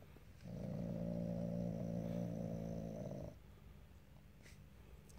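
Asian leopard cat growling low over a raw chicken drumstick: one steady, rough growl lasting about three seconds, starting about half a second in.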